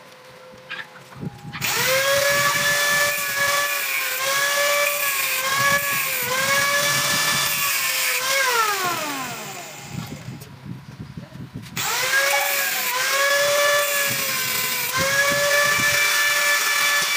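Handheld angle grinder grinding through the welds on a metal-pipe bumper to free it from its braces. Its motor whine sags in pitch each time the disc is pressed into the metal, then spins down with a falling pitch. It starts again a couple of seconds later for a second run, which spins down at the end.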